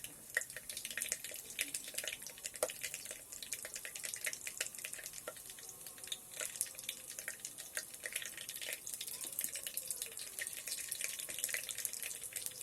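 Mustard seeds, gram dal and a dry red chili frying in hot oil in an electric kettle: a steady sizzle with many small, irregular crackles and pops.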